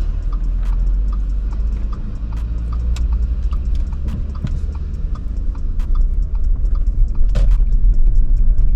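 Low engine and road rumble heard from inside a moving car, growing louder toward the end. A light ticking repeats about twice a second.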